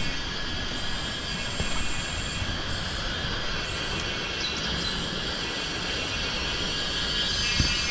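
Steady outdoor rushing noise, like running water, with thin high steady tones, and a short high chirp repeating about once a second that stops about five seconds in.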